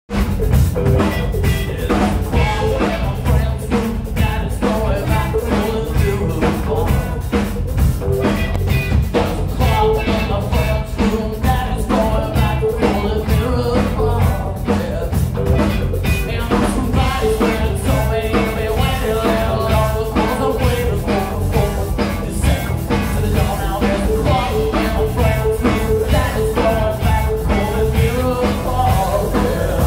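Live rock trio playing loud: electric bass, electric guitar and drum kit, with a male voice singing over them.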